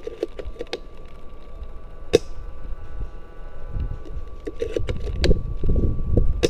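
A spring-powered bolt-action airsoft sniper rifle firing once about two seconds in, a single sharp crack. Rustling and handling noise with a few small clicks around it grows louder in the second half.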